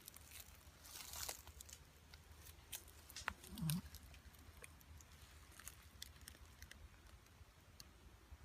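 A sleeping pit bull between snores: mostly quiet, with faint scattered clicks and one brief, soft breath sound about three and a half seconds in.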